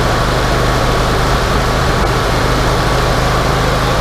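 Wood-Mizer LT40 hydraulic sawmill's engine running steadily, with a constant low hum and a thin steady whine above it.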